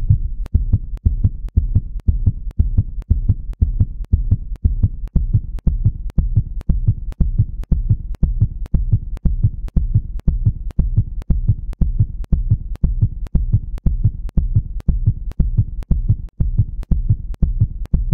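Heartbeat sound effect: deep, low pulses repeating in a fast, even rhythm.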